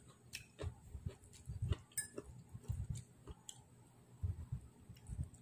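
A person chewing pancit noodles close to the microphone: irregular soft mouth sounds with small wet clicks, and a fork now and then clicking against the plate.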